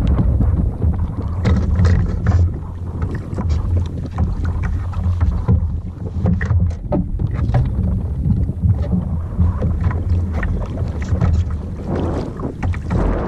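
Wind buffeting the microphone on a kayak at sea: a loud, uneven low rumble, with scattered small splashes and knocks of water against the hull.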